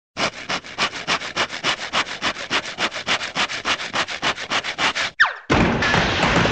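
Cartoon sound effect of a hand saw cutting fast through a floor, about six strokes a second for roughly five seconds, then a quick falling whistle and a loud crash of the floor giving way, which keeps rumbling on near the end.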